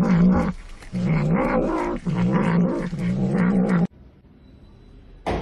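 Cat growling in three long, low drawn-out calls that cut off suddenly a little under four seconds in, followed by a single sharp click near the end.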